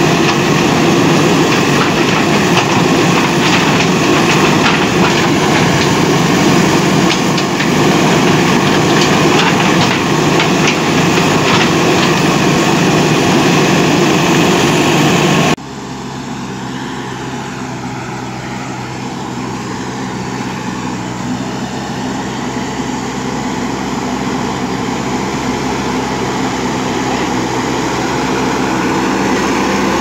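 JCB backhoe loader's diesel engine working under load while the machine digs, loud and dense, with faint clanks mixed in. About halfway through the sound cuts to a backhoe loader at a distance pushing earth, its engine running steadily and growing louder as the machine comes closer.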